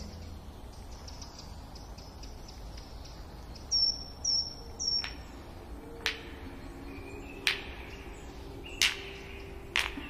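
Cartoon forest ambience: a faint steady background with three quick high bird chirps about four seconds in, then four sharp cracks at intervals of roughly a second and a half.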